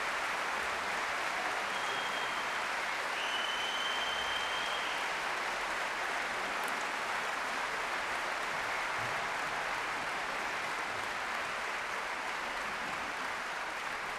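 Large audience applauding steadily after a song, the clapping slowly fading. A high whistle rings out over it about two to five seconds in.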